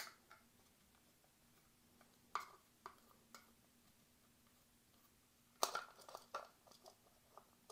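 Small clicks and taps of a T5 Torx screwdriver working the logic-board screws out of a plastic smart-speaker housing, a few scattered clicks, then a quick cluster of plastic clicks and rattles about five and a half seconds in as the circuit board is handled.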